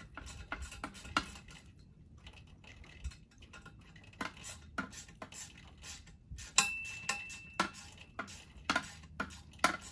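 Irregular metallic clicks and clinks of hand tools and loose steel bolts and washers being handled, a couple of them ringing briefly about two-thirds of the way in.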